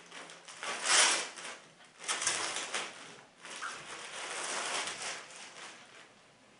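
Rustling and crinkling of packaging as a cap is pulled out and handled, in several bursts: a loud one about a second in, another after two seconds, and a longer stretch near the end.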